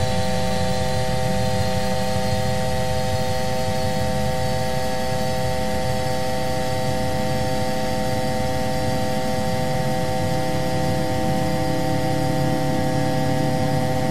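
Steady jet-airliner engine and cockpit noise: a continuous low rumble with several held tones over it.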